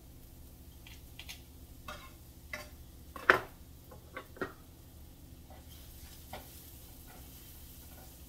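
Metal kitchen utensils knocking and clacking against a frying pan on the stove, with a handful of sharp clacks and the loudest about three and a half seconds in. A faint sizzle of food frying sits underneath.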